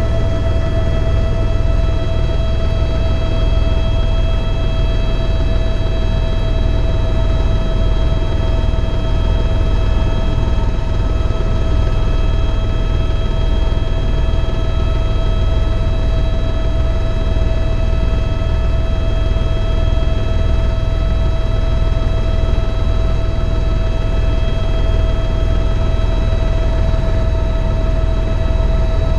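Eurocopter EC130 EcoStar helicopter running steadily: a loud, low, evenly pulsing rotor thrum with a steady turbine whine over it.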